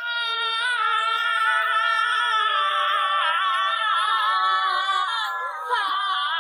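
Background song: a high singing voice holding long, wavering notes, starting suddenly.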